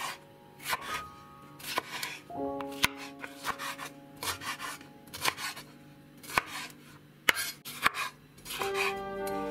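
Santoku kitchen knife slicing a red bell pepper on a bamboo cutting board: crisp cuts ending in knocks of the blade on the wood, roughly one a second, over background music.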